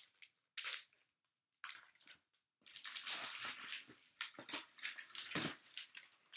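Hard plastic comic grading slabs and their clear plastic bags being handled: a few short rustles and clacks, then a longer stretch of crinkling and knocking plastic in the second half.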